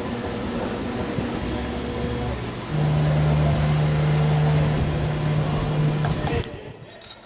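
Pet ID tag engraving machine running with a steady mechanical hum. About three seconds in, a louder motor drone starts as the mechanism moves the finished tag. It cuts off about three seconds later, followed by a few clicks.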